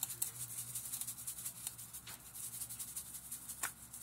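Steak frying in butter in a pot, a steady crackling sizzle, with a few sharper rattles as seasoning is shaken over it from a shaker bottle.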